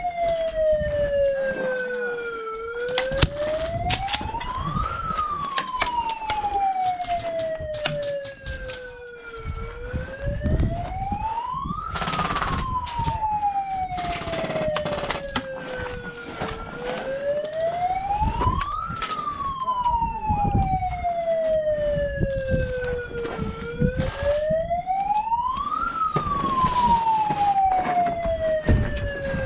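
A siren wailing in a slow cycle: a quick rise in pitch, then a long falling slide, repeating about every seven seconds, with scattered sharp clicks and knocks over it.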